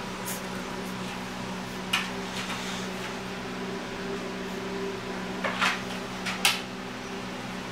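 A steady background hum, with a few brief rustles as a two-week-old boxer puppy is handled on a blanket: one about two seconds in and a quick cluster in the second half.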